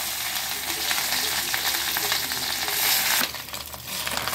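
Fish roe sizzling as it fries in hot oil in a kadhai, stirred with a spatula. The loud sizzle eases about three seconds in.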